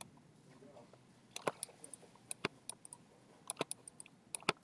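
A scattering of short, sharp clicks from a computer mouse and keyboard, often coming in quick pairs, as 3D scans are grabbed and rotated in the software.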